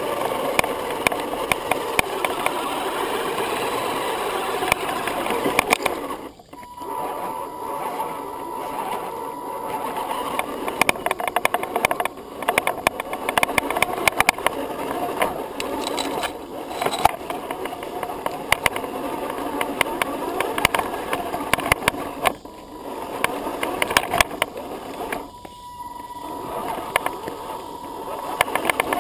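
Axial SCX10 Honcho electric RC crawler driving over gravel and dirt: a steady motor and gear whine with constant clicking and crunching of stones under the tyres. The noise dips briefly a few times when the truck eases off.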